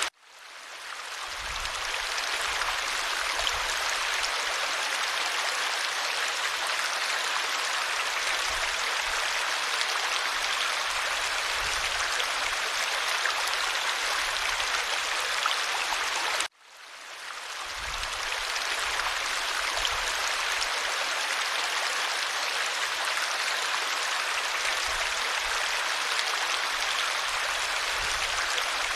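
Stream water running in a steady rush. It cuts out abruptly twice, at the very start and about halfway through, and each time fades back in over a couple of seconds, as at the seam of a looped recording.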